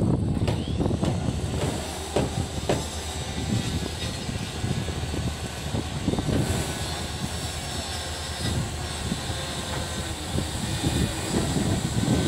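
Railway passenger coach rolling slowly through an automatic coach washing plant: a steady rumble of wheels on track with a few scattered clanks, mixed with the hiss and whirr of the plant's water spray and rotating wash brushes.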